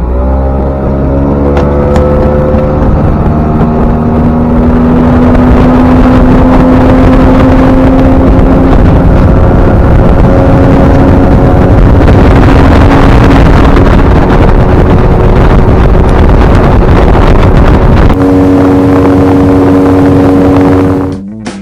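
A boat's outboard motor running under way, speeding up right at the start, then holding a steady pitch at speed before it cuts off near the end.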